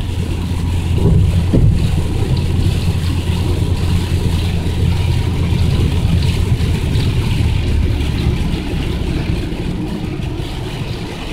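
Inside the cabin of a car at highway speed on a wet road: a steady low rumble of engine and tyres, with an even hiss of road spray and rain, and no wiper sweeps. The rumble eases slightly near the end.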